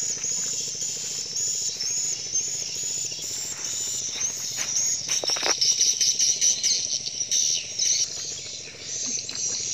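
Insects chirping in a steady, high, rapidly repeating chorus, with a few bird chirps mixed in.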